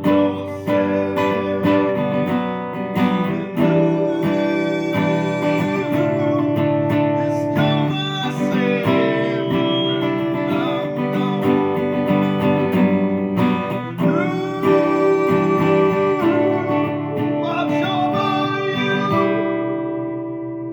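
Guitar strummed and picked in an instrumental passage of a song, with the last chord left ringing out near the end.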